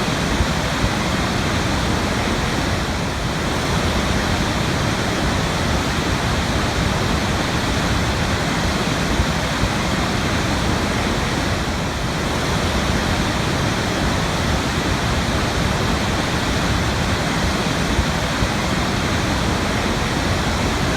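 Waterfall: water falling and splashing in a steady, dense rush with no change in level.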